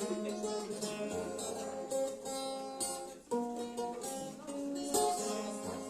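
Instrumental music with no singing: the song's closing bars after the last vocal line, sustained notes changing every second or so.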